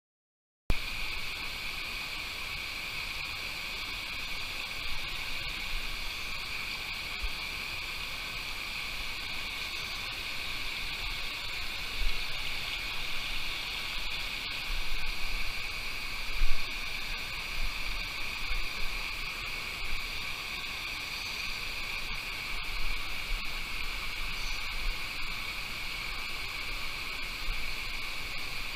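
Small rocky mountain stream rushing over stones and little cascades, a steady hiss that starts abruptly under a second in. A few low thumps on the microphone break through it.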